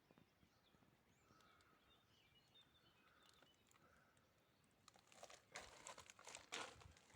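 Near silence with faint chirping birds in the background, then faint crackling and rustling over the last couple of seconds.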